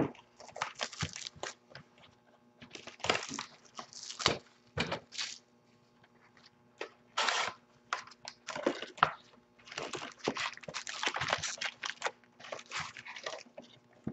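A sealed Topps Jumbo football card hobby box being torn open and its foil card packs handled: irregular bursts of tearing and crinkling wrapper and cardboard, with a few sharp clicks.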